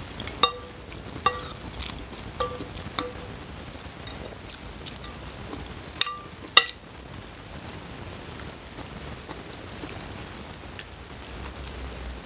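Metal fork and spoon clinking against a bowl of noodle soup while stirring the noodles: about seven short ringing clinks, most in the first three seconds and the loudest pair about six seconds in, then quieter handling.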